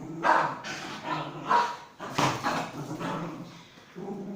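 Pomeranian barking repeatedly during play, a run of short barks with brief gaps between them.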